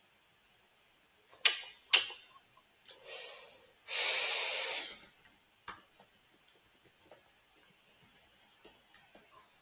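Computer keyboard keys being typed and clicked, with two sharp, louder clicks about a second and a half in. A rush of noise lasting about a second comes through the middle, and light, irregular key taps fill the second half.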